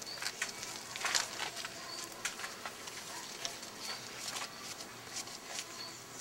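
Outdoor ambience: a short high chirp repeating about every two seconds, over scattered rustles and clicks.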